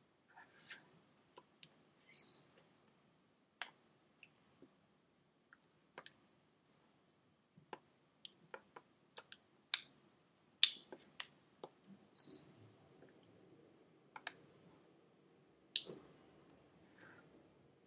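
Irregular sharp clicks and taps from hands and finger rings knocking together during sign language, with a few louder clicks near the middle and near the end.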